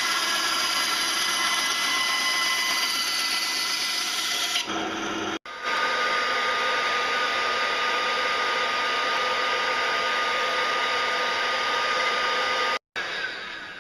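Small bandsaw running as it cuts a PVC pipe fitting. After a cut about five seconds in, an electric blower motor runs with a steady rushing whine.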